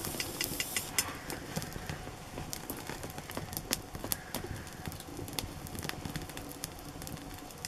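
Meat crackling and spattering as it cooks, with scattered sharp pops that are busiest in the first second.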